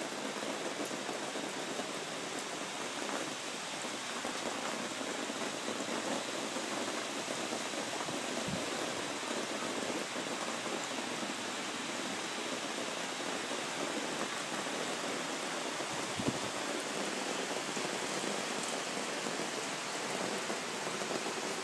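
Heavy rain falling steadily, an even hiss of downpour, with a couple of faint low thuds.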